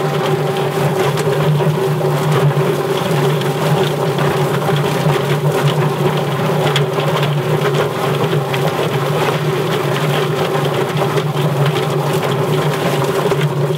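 Yardbird mechanical chicken plucker running: a steady motor hum as the spinning plate tumbles a scalded chicken against the rubber plucking fingers, with a dense rapid slapping and rattling. Water from a hose sprays into the tub.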